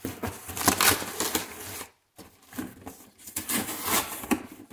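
Corrugated cardboard of a stapled-shut shipping box being ripped and pulled apart by hand, in irregular tearing and crackling strokes, with a short break of silence about two seconds in.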